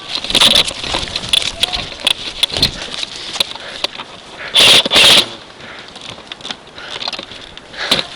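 Scattered sharp clicks and pops of airsoft guns firing during a skirmish, with a louder rustling burst about five seconds in.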